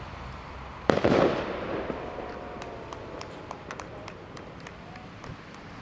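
A firework going off with one sharp bang about a second in, followed by scattered crackling pops.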